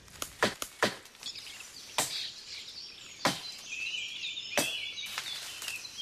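Irregular chopping strokes of machetes cutting through forest vegetation, about seven sharp knocks in all. Birds chirp in the background about four to five seconds in.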